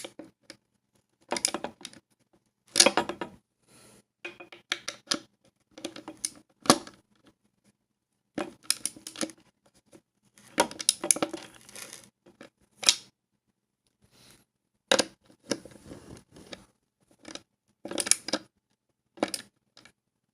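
Skateboard truck mounting hardware being handled and tightened: short, irregular bursts of metal clicking and scraping with pauses between them.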